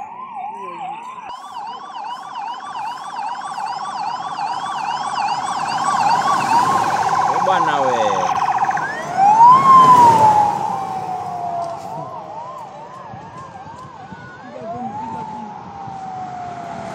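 Motorcade escort sirens: several sirens overlap, yelping rapidly at about two cycles a second, with a long falling wail about nine seconds in and another near fourteen seconds. The sound is loudest around ten seconds in, with a surge of vehicle noise as the convoy draws near.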